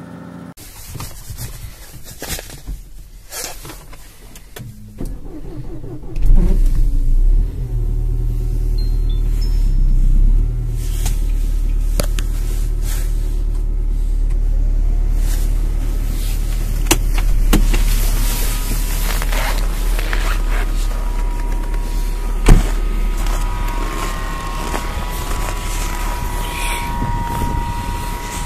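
Nissan Terrano's engine cold-started in hard frost: quiet clicks, then a loud start about six seconds in, after which the engine catches and runs steadily at a raised cold idle.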